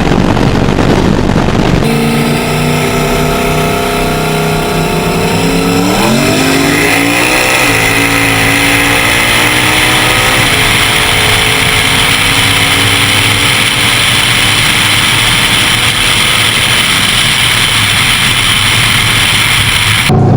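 Turbocharged LS V8 race car under hard acceleration: the engine note climbs steeply about six seconds in, then holds a loud, steady high-speed run, and the sound cuts off abruptly near the end.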